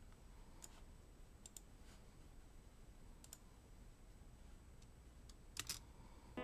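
Near silence with a handful of faint, sharp clicks scattered through it, the loudest pair coming near the end.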